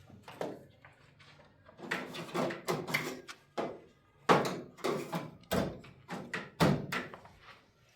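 A series of knocks and thuds in a small room, about a dozen, starting about two seconds in; the loudest comes a little past the middle.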